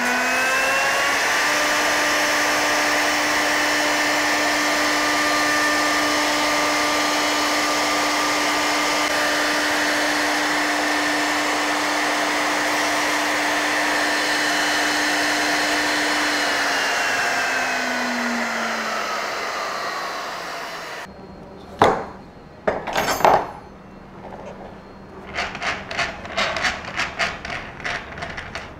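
Overhead pin router spun up to speed, running with a steady tone while its bearing-guided pattern bit trims a wooden jig to a template, throwing chips. It winds down about 17 seconds in, followed by two sharp knocks and a run of quick clicks as the clamped workpiece is handled.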